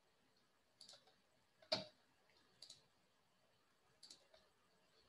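Faint, scattered clicks of a computer mouse, several over a few seconds, the loudest a little under two seconds in, against near silence.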